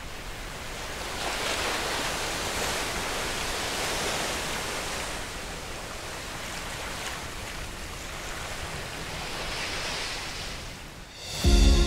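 Ocean waves and surf, a steady rushing that swells and eases, with music cutting in abruptly near the end.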